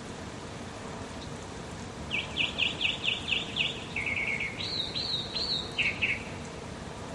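A songbird singing. It gives a quick run of about eight down-slurred notes, then a short fast trill, then a few higher arched notes over about four seconds. A steady background hiss runs beneath it.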